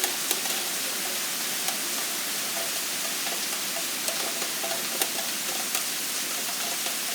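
Very heavy rain pouring down steadily: a dense, even hiss with scattered sharp taps of drops landing close by.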